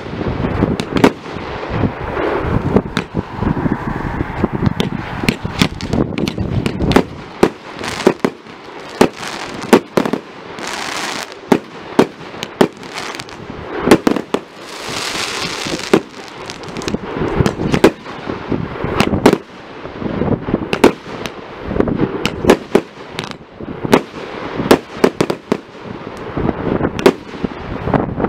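Aerial fireworks display: shells bursting in rapid succession, several sharp bangs a second over a continuous rumble, with a stretch of high hissing about halfway through.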